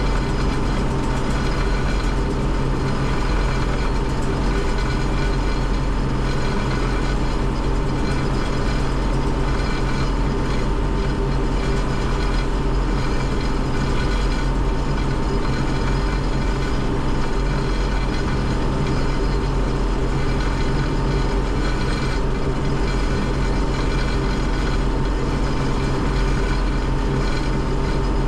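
Combine harvester running steadily while picking corn: an even engine drone with a constant high whine over it, unchanging throughout.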